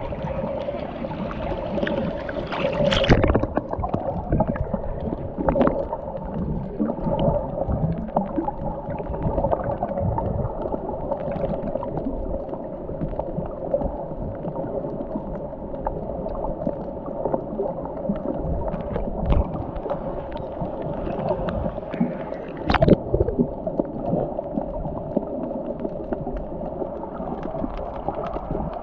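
Underwater sound picked up by a GoPro Hero in its waterproof housing: a steady, muffled wash of water with gurgling. Sharp knocks or clicks cut through about three seconds in and again about three-quarters of the way through.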